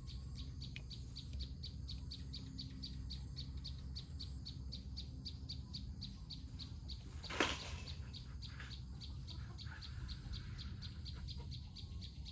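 Outdoor ambience with a steady, rhythmic high chirping, about five chirps a second, over a low rumble. One sharp, loud crack-like sound stands out about seven seconds in.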